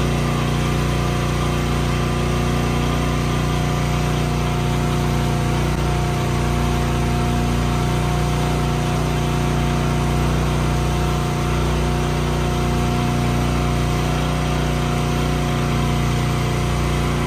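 Motorised calf milk-feeding cart running steadily: an even mechanical hum with several steady whining tones over a low drone.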